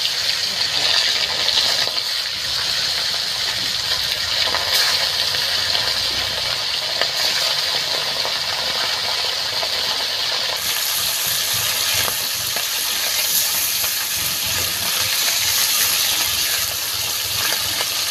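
Steady sizzle and crackle of foli (featherback) fish pieces frying in hot mustard oil in an aluminium kadai, with scattered spatter pops. The sizzle turns sharper and brighter about halfway through.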